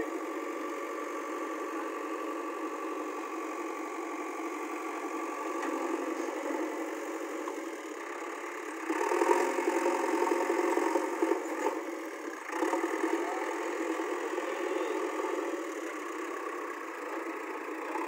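JCB backhoe loader's diesel engine running steadily, growing louder from about nine seconds in as the machine drives off across the field.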